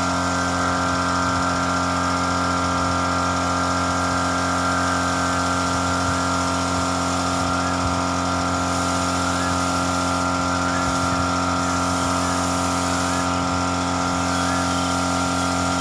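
Air compressor running steadily with a constant hum, alongside a hiss of air that thins in its upper part several times.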